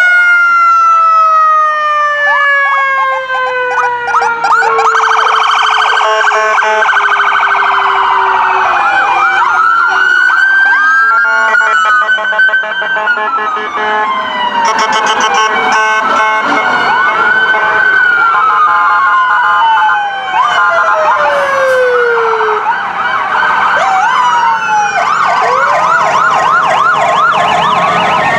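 Several emergency-vehicle sirens sounding at once as the parade vehicles pass. Over the first several seconds one siren winds slowly down in pitch. Electronic sirens overlap it, cycling through slow wails and, near the end, a rapid yelp.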